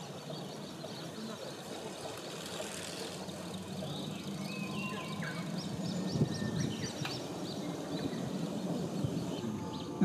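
Wild birds calling and singing: scattered thin high notes and short whistles over a low, steady background rumble.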